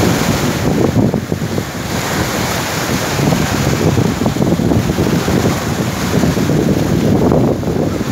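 Wind buffeting the microphone over the wash of sea surf breaking on the beach.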